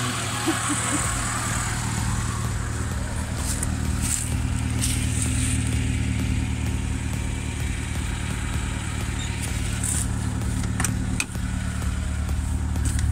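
Lada Niva 4x4's engine idling steadily with a low, even hum. A few light clicks and knocks are heard over it.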